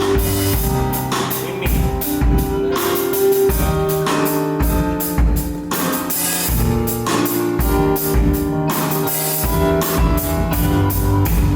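Rock band playing live: drum kit with a steady beat of bass-drum hits under sustained guitar and bass notes.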